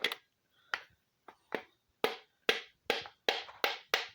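A hammer tapping a piston down the cylinder bore of an LQ4-block LS V8 to seat the connecting rod on the crankshaft journal. About ten sharp knocks, coming faster in the second half.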